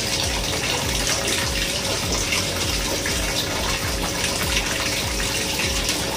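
Small garden waterfall running steadily, water pouring down an artificial rock wall and splashing into a pond.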